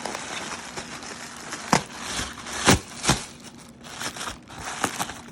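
Packaging crinkling and rustling as it is handled and pulled apart by hand, with a few sharp knocks about two and three seconds in.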